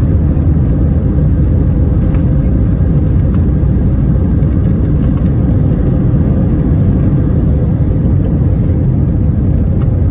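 Steady, loud cabin noise of an Airbus A320-231 in flight: a low rumble of its IAE V2500 engines and rushing airflow, with a faint steady hum.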